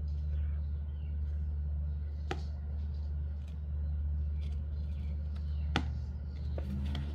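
A steady low hum, with two sharp clicks and a few faint ticks as paper is creased and pierced by hand.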